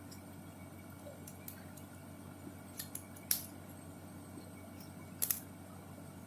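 Push-button desoldering pump clicking: a few faint ticks, a sharp snap a little over three seconds in and a quick double snap past five seconds, over a low steady hum.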